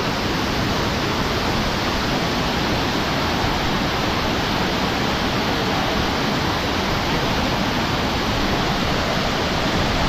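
Rushing water, a steady, even rush that does not change.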